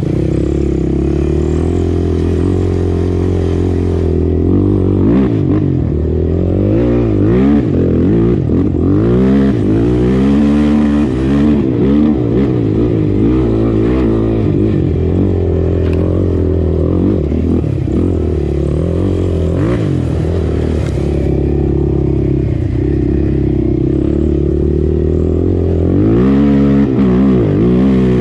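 Sport quad's single-cylinder four-stroke engine under way, its revs rising and falling repeatedly for several seconds as the throttle is worked, then running steadily, and revving up again near the end.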